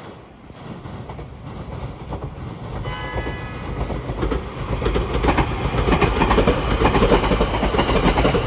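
A JR Kyushu 787-series electric train's electronic horn gives one short toot about three seconds in, sounded by the driver as a greeting. The train then passes close by, its wheels clattering over the rail joints, growing steadily louder.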